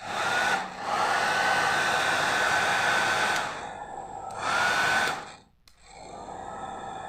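Freshly repaired hair dryer running: its fan motor spins up with a rising whine over a steady rush of air, and is switched between high and low speed. It cuts out briefly about five and a half seconds in and comes back on at the lower speed. Both speed settings work.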